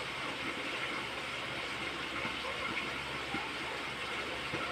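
Fish frying in hot oil in a covered wok: a steady sizzle with small scattered crackles and pops.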